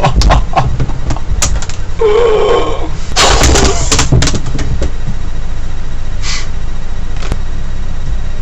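A man's wordless vocal noises: a wavering groan about two seconds in, then a loud breathy yell about a second later, over a steady low hum.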